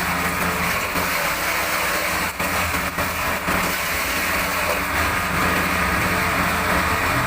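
Engine-driven forage chopper running steadily, a low engine hum under a loud, even whirring hiss, with two brief dips in level near the middle.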